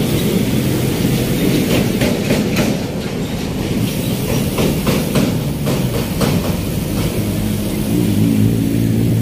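Loud, steady rumble of road traffic on the microphone while walking, with light knocks about twice a second from footsteps and handling. A vehicle engine's steady hum comes up near the end.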